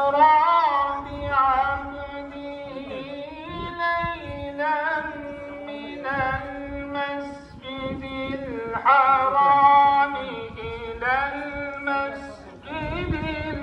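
Solo voice chanting a slow, ornamented Islamic recitation-style melody in phrases of a second or two, over a steady held drone note.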